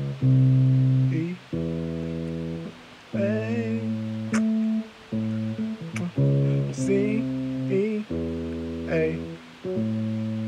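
Yamaha synthesizer keyboard playing a bass line: a run of low held notes, each lasting about a second, with short gaps between them.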